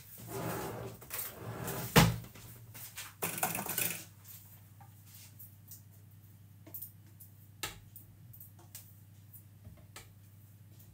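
Kitchen handling noise: rustling and clattering with a sharp knock about two seconds in, then soft, scattered clicks and scrapes as a silicone spatula scrapes sticky golden syrup from a metal bowl into a food processor bowl. A low steady hum runs underneath.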